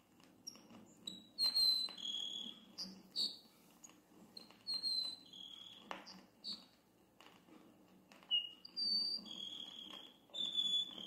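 Grassland sparrow (tico-tico-do-campo) singing: short, high, thin whistled phrases repeated every few seconds, over faint background hiss and hum.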